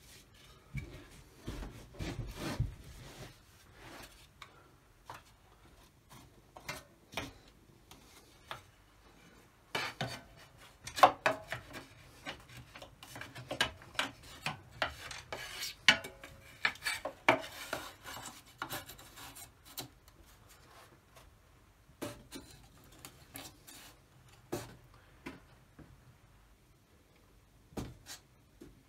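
Scattered knocks, taps and scraping from wooden and metal parts being handled, busiest and loudest through the middle.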